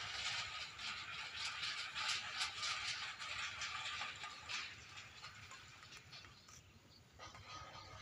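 Tin-can bird scarers on a rope line rattling as the rope is pulled to chase birds off the rice: a dense clatter for about four and a half seconds that then dies away.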